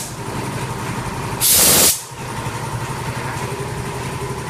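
Compressed air at about 15 bar blasting out with a loud hiss for about half a second, about one and a half seconds in, over a steady machine hum.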